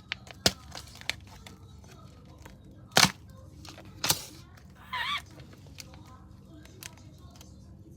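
Plastic packaging of a squishy toy being torn open and crinkled, with a few sharp rips and cracks, the loudest about three and four seconds in.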